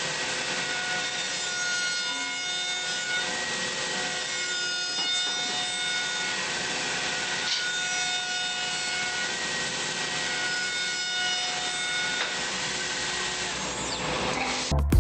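CNC woodworking machine cutting wood: a steady rushing noise with whining tones that come and go as the cutter works. It ends in a brief loud burst and cuts off abruptly.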